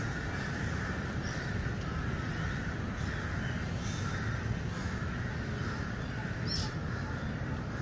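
Outdoor park ambience: a steady high drone over a low rumble, with a few brief bird calls, the clearest about six and a half seconds in.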